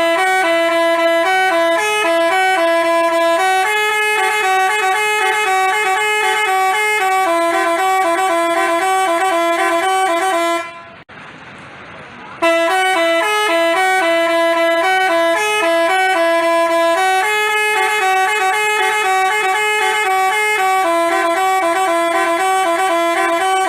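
Basuri telolet multi-tone horn playing a tune in stepping notes. It cuts off about ten and a half seconds in and, after a pause of about a second and a half, plays the same tune again.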